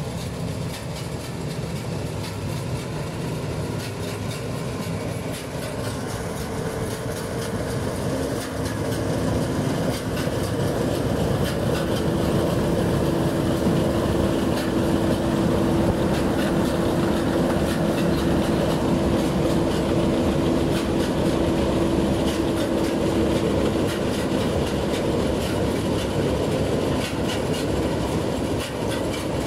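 New Holland 8070 combine harvester running, its engine and threshing machinery going steadily as it crawls on rubber tracks through a rice paddy. It grows louder about ten seconds in as it comes close, with a steady hum that holds for about fifteen seconds.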